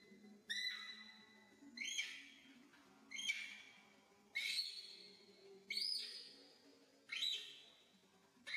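Young macaque crying in high, whistle-like calls, about seven of them at a steady pace, each starting sharply on one held note and trailing off.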